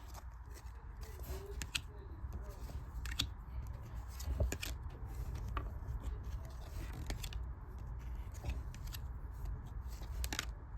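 Trading cards being flipped through by hand: card stock sliding against card stock, with scattered light clicks.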